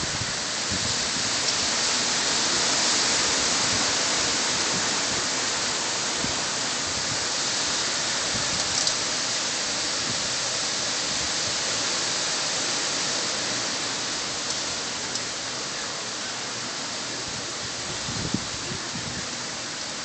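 Steady rush of hurricane wind and driving rain, with no let-up.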